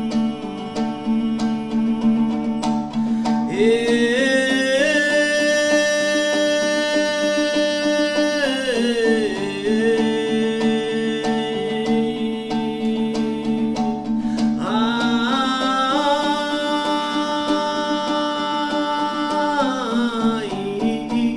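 An ensemble of plucked dombras plays a steady accompaniment while a man sings two long held phrases. Each phrase slides up into a sustained, wavering note and falls away at the end; the first enters about four seconds in and the second about fifteen seconds in.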